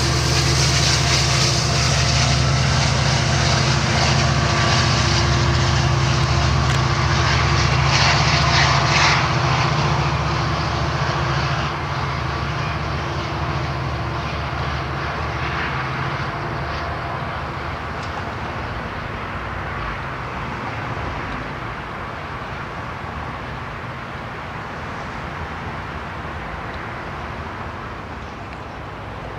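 Amtrak EMD F59PHI diesel locomotive pushing its passenger train away, its engine drone steady under load and fading as it recedes. A burst of wheel-and-rail clatter comes about eight seconds in.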